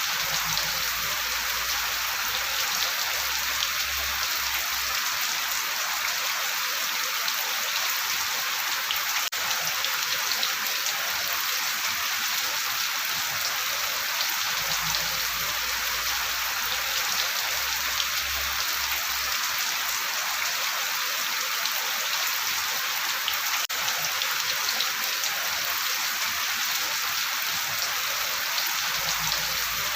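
Steady rain, an even hiss of many small drops. A faint low rumble comes and goes about every fifteen seconds.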